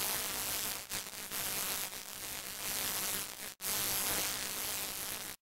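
A steady electric buzzing, static-like hiss with a brief break about three and a half seconds in, cutting off suddenly near the end.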